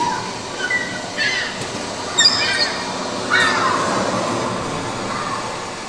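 Audience cheering, with several high-pitched shouts and whoops rising over a steady crowd noise.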